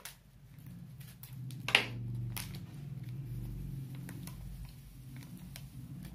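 Faint clicks and crinkles of an Eno sachet being cut open with scissors and handled, with one sharper click a little under two seconds in, over a steady low hum.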